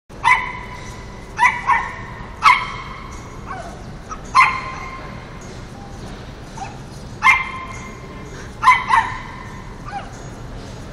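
Teacup poodle barking in about nine short, high-pitched yaps, singly and in quick pairs at irregular intervals.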